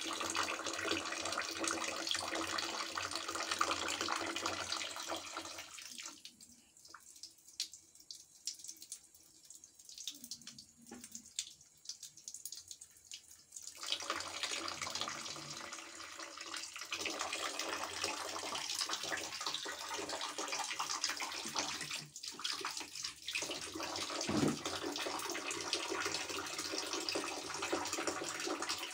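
Water running from a tap into a plastic bucket, a steady splashing hiss. It falls nearly silent for about eight seconds a quarter of the way in, then runs again, with two brief breaks later on.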